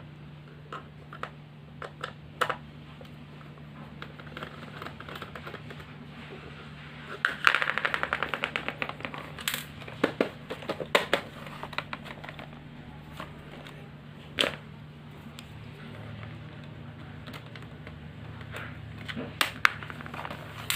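Screwdriver undoing the small screws of the memory cover on the underside of a Lenovo G480 laptop: scattered clicks and light scrapes of metal on plastic, with a quick run of ticks about seven seconds in.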